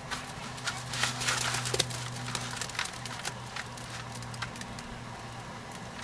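Wet concrete sliding and dropping out of a plastic bucket into a wooden form, with irregular knocks as the upturned bucket is tapped and shaken to empty it. The knocks come thickest in the first couple of seconds, over a low steady hum.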